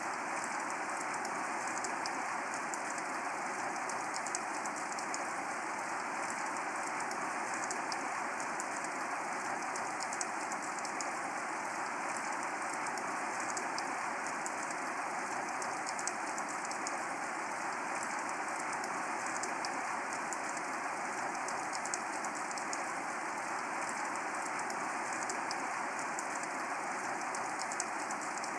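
Steady rain falling, a constant hiss with many small sharp drop impacts scattered through it.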